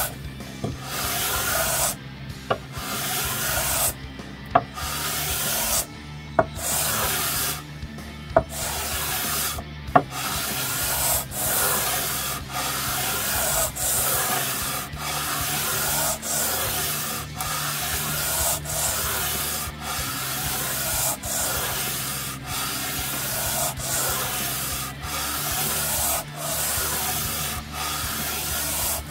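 180-grit sandpaper on a 12-inch radius sanding block rubbing back and forth along a guitar's fingerboard, leveling the wood and old fret-glue buildup. For the first ten seconds the strokes come with short pauses and a few sharp clicks. After that they settle into an even rhythm of about one stroke a second.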